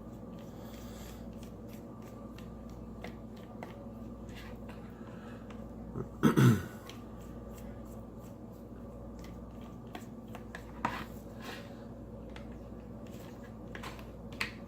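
Small light clicks and ticks of a precision Y-tip screwdriver turning the tiny back-cover screws of a smartwatch, over a steady low hum. About six seconds in, one loud short vocal sound breaks in briefly.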